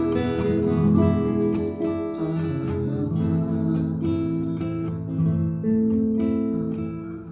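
Nylon-string classical guitar played solo, strummed chords ringing on, with no singing.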